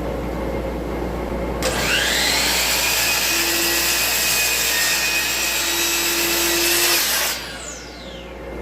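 Electric saw switched on, its motor whine rising and then holding steady while it crosscuts a poplar board to length. It is switched off after about six seconds, and the whine falls as the blade spins down.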